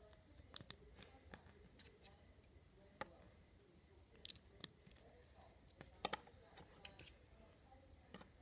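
Small plastic LEGO bricks and plates clicking as they are handled and pressed together: scattered faint clicks, the sharpest a quick pair about six seconds in.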